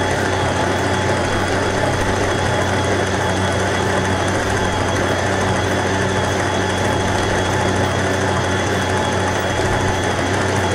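Electric stand mixer running steadily at low speed, its dough hook kneading flour and water into pizza dough in a steel bowl.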